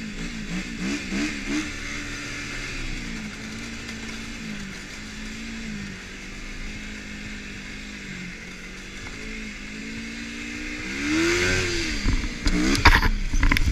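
Yamaha snowmobile engine running under throttle, its pitch rising and falling with the throttle, climbing sharply then dropping off near the end. It finishes in several loud thumps and clatter as the sled hits rough ground and crashes.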